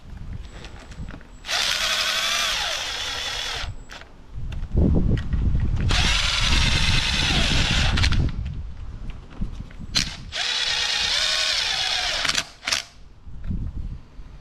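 Cordless drill driving bolts in three runs of a few seconds each, its motor whine dropping in pitch as each run ends. Knocks and clicks of handling the tool and bolts come between the runs.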